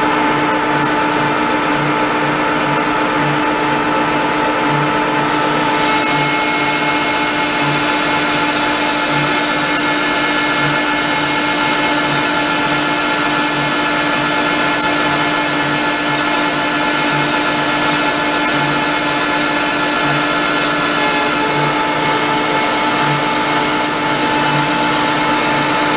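Pratt & Whitney Model B 12×30 engine lathe running under power, its gearing giving a steady whine with a low pulsing beat, while the tool takes a cut in the oiled metal workpiece on power feed. A higher hiss joins about six seconds in and drops away about twenty-one seconds in.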